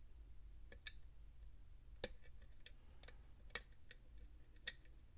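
Sparse, sharp metal clicks from a lock pick working the pins of an ASSA Max+ restricted lock, about five at uneven spacing, the loudest near the end.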